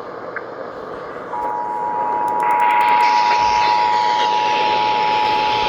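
Radio hiss, then the Emergency Alert System attention signal begins about a second in: the steady two-tone 853 and 960 Hz alarm, holding on one pitch pair over hiss that grows louder and brighter.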